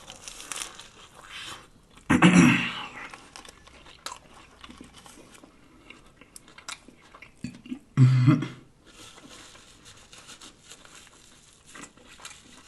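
Close-miked chewing of a lettuce-wrapped sub sandwich, with wet crunching and small crackly mouth noises, and two louder bursts of sound about two and eight seconds in.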